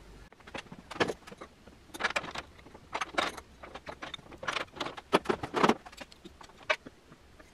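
Change gears on the end gear train of a Weiler LZ280 lathe being taken off and refitted by hand: an irregular run of metallic clinks and knocks.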